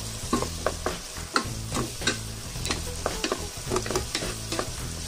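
Wooden spatula stirring diced vegetables in a non-stick pot, scraping and knocking against the pan in quick irregular strokes, over the soft sizzle of the simmering soy-sugar sauce.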